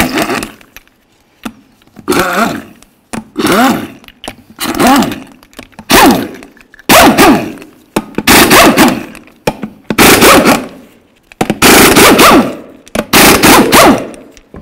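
Air impact wrench hammering on a truck wheel's lug nuts in about ten short bursts, each under a second long, breaking the nuts loose and spinning them off.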